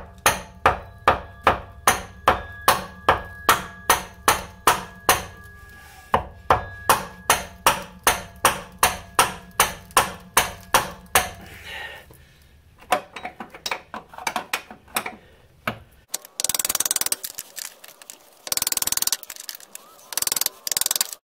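Hammer blows on a wrench seated on a seized 17 mm axle-bushing bolt nut: a steady run of sharp metallic strikes, about two and a half a second, each with a short ring, pausing briefly halfway. Lighter irregular clinks follow, then several seconds of loud hissing bursts near the end.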